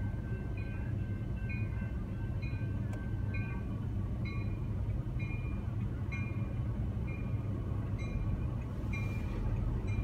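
A bilevel commuter train passing over a grade crossing with a steady low rumble. The crossing's warning bell dings about once a second throughout.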